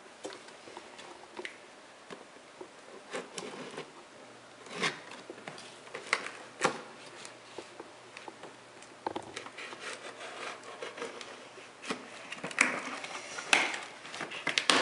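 A small cardboard box being handled and opened: scissors cutting through its packing tape, then the flaps pulled open. Scattered scrapes and taps that grow louder near the end.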